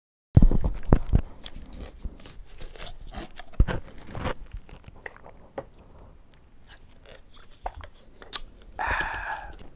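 Thin plastic water jug handled close to the microphone: a run of crinkling, crackling clicks and knocks, thinning out after a few seconds, with a short breathy rush near the end.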